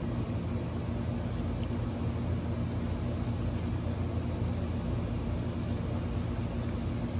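A steady low mechanical hum over an even rushing noise.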